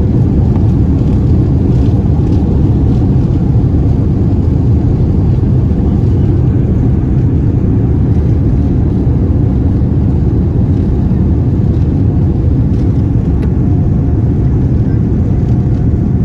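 Steady low rumble of a Boeing 787-9's engines and airflow heard inside the economy cabin. A faint steady tone joins in near the end.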